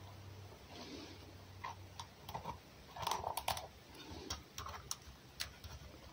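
Fox biting into and chewing an egg: irregular sharp cracks and clicks of the shell with wet chewing, busiest about three seconds in.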